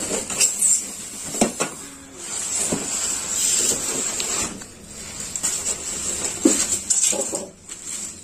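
Packaging being handled: plastic wrap rustling and crinkling, with styrofoam packing blocks and cardboard shifting and knocking irregularly as a boxed welding machine is lifted out.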